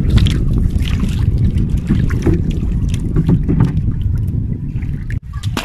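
Paddled outrigger canoe moving through water, with scattered splashes from the paddle under a strong, steady rumble of wind on the microphone.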